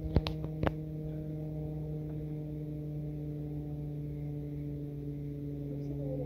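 A steady low hum with several overtones, unchanging throughout, with three or four sharp clicks in the first second as a small metal geocache capsule is handled and opened.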